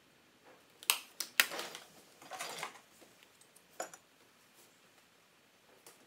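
A few sharp clicks and clatters of small hard objects being handled, with short rustling stretches in between.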